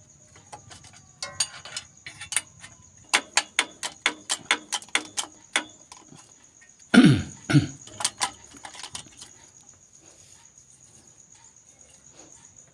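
Irregular metallic clicks and knocks from a car's clutch bearing being worked by hand, the bearing loose in its seat instead of press-fitted, a fault that makes noise when the clutch pedal is pressed. About seven seconds in there is a short, louder sound falling in pitch, like a cough.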